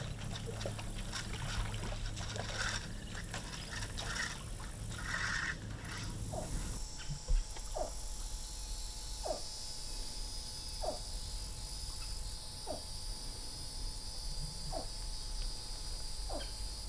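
Fishing reel clicking and line rustling as a snatch hook is pulled across the water. From about seven seconds in, a short falling chirp-like call repeats about every one and a half seconds.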